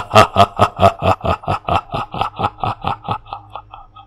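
A man's long, drawn-out laugh, 'ha-ha-ha' at about five beats a second, growing fainter and dying away near the end.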